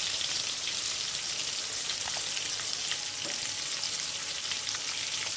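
Egg-battered chicken pieces deep-frying in hot oil in a karahi: a steady sizzle with small crackles and pops.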